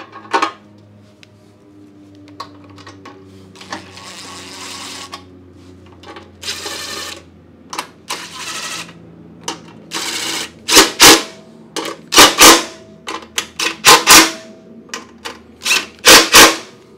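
Cordless impact driver driving the recoil starter's mounting bolts into the engine shroud in short bursts, the loudest ones in the second half, after a brief plastic clatter as the starter housing is set in place.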